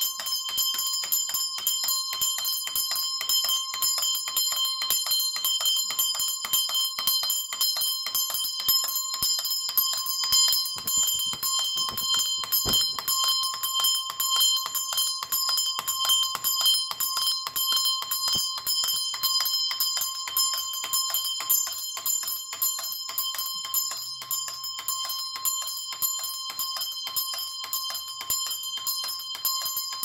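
Antique English clockwork burglar-alarm bell, a John Linwood mechanism, ringing continuously as its clockwork clapper strikes the brass bell many times a second. It has been tripped by its string being pulled as a door opens, setting the clockwork running.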